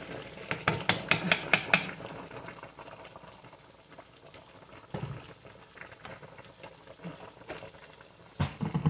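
Kitchen sounds at a pot of boiled meat on the stove as blended peanut paste is spooned in: a quick run of sharp clicks in the first two seconds, then the pot simmering quietly, with a thump about five seconds in and a sharper knock near the end.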